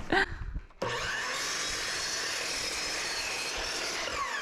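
Miter saw switched on suddenly about a second in and cutting through a 2x6 board with a steady whine. Near the end the trigger is released and the motor winds down in a falling whine.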